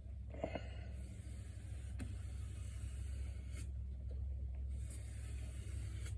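Steady low hum with a few faint light ticks, about half a second in and again near two seconds.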